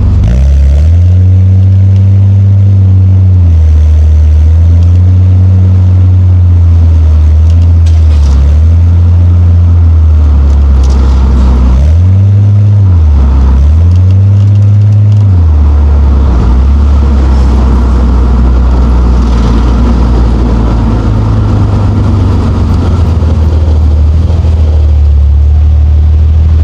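Nissan Skyline R34 GT-t's turbocharged straight-six engine pulling through short bursts of acceleration, its pitch rising and dropping back several times, then running at a steady low pitch for the second half.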